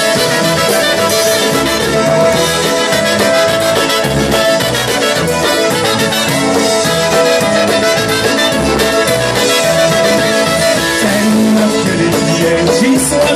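Live polka band playing an instrumental passage: trumpets, fiddle and accordion over a steady beat, with long held notes.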